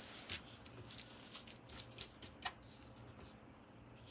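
Hands moving lightly over the back of a large diamond painting canvas on a table: faint rustles and a few soft ticks, over a low steady hum.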